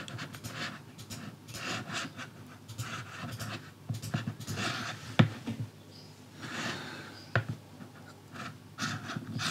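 Soft breathing close to the microphone with faint scratchy rustles, and two sharp clicks about five and seven seconds in.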